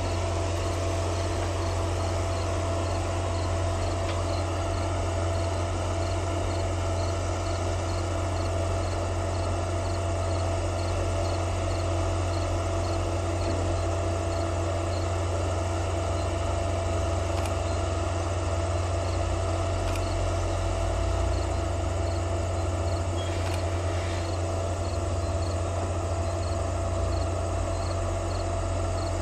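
Insects chirping in a steady, regular pulse over a constant low hum.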